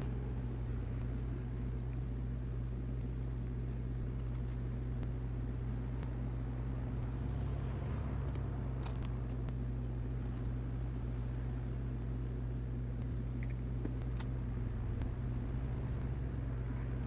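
A steady low hum runs throughout, with a few faint light clicks and taps as thin laser-cut wooden pieces are handled and set onto a wooden base.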